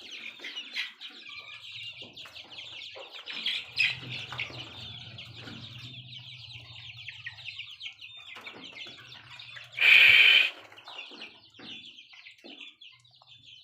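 A flock of young Sonali desi chicks, about four weeks old, peeping and cheeping continuously, many birds at once, with one loud half-second call about ten seconds in. A faint low hum runs under the peeping for a few seconds.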